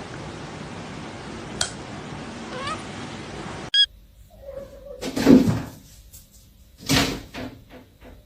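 Domestic cat sounds: a cat's cries mixed with a few knocks and bumps, the loudest about a second and a half after a stretch of steady background hiss.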